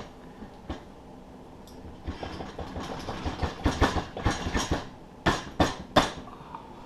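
Metal clicking and knocking as a wheel is worked onto the axle hub: a quick run of small clatters about two seconds in, then a few sharper knocks near the end.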